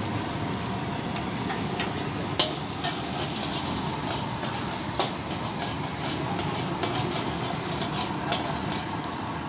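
Capcay stir-frying in a hot wok: food sizzling steadily while a metal spatula scrapes and clicks against the wok, with sharp knocks about two and a half and five seconds in, over a steady low rumble.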